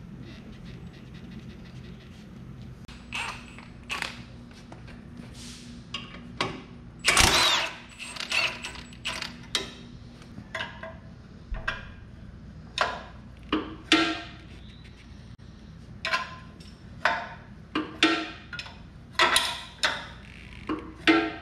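Metal tools clinking and clanking on the belt-tensioner bolts of a Rayco RG50 stump grinder as the drive belt is tightened, in a string of sharp, irregular knocks. The loudest is a burst of about a second some seven seconds in. A low steady hum runs underneath until about ten seconds in.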